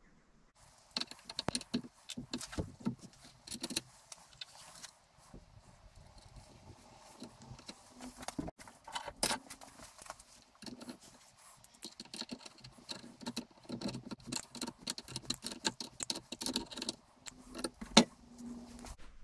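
Small steel hardware and hand tools clinking and rattling as they are handled: a bolt, nut and washer, then an adjustable spanner and pliers. The result is many short metallic clicks, with a sharper knock about halfway through and a louder one near the end.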